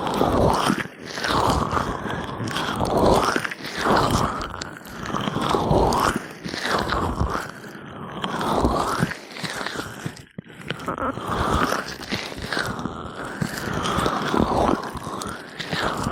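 Gloved hands slowly rubbing oil over an ear, close to the microphone: slick, crackly, squishy strokes repeating about every second and a half.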